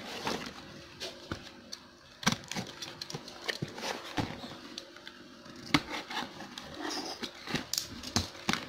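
Cardboard shipping carton being handled and turned over by hand to open it: scattered irregular taps, knocks and scrapes of cardboard.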